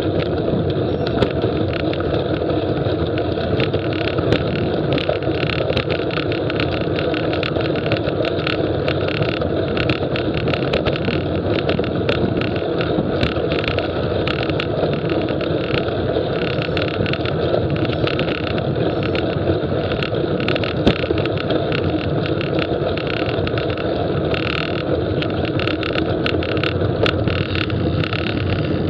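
Steady wind rush and road rumble from a bicycle being ridden, with frequent small clicks and rattles throughout.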